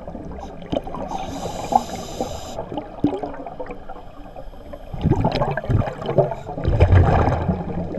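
Scuba regulator breathing heard underwater: a hiss of inhaled air about a second in, then irregular gurgling bursts of exhaled bubbles, loudest in the second half.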